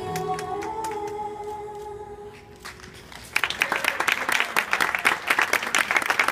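Music with long held sung notes fades out, and a little over three seconds in an audience breaks into loud applause that carries on to the end.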